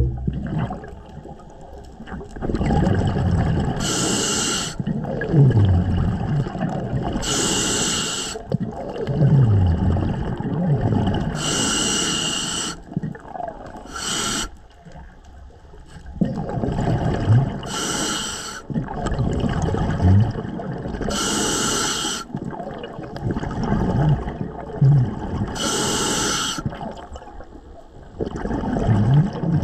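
Scuba diver breathing through a regulator underwater. A short hissing inhale comes every three to four seconds, each followed by a longer bubbling exhale with low warbling gurgles.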